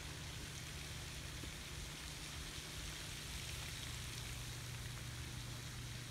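Steady hiss of a pond fountain's spray splashing back onto the water, sounding like rain, over a low steady hum.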